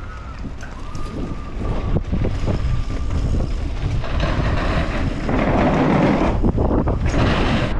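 Wind rushing over a helmet- or bike-mounted action camera's microphone, mixed with mountain bike tyres rolling fast over a dirt trail, growing steadily louder as the bike picks up speed on the descent.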